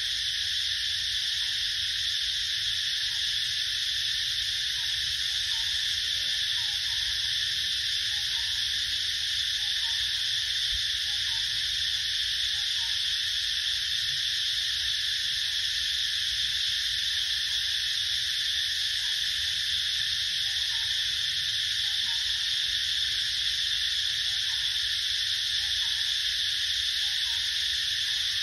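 A steady, unbroken chorus of forest insects: a dense high-pitched buzz that holds level throughout without pauses.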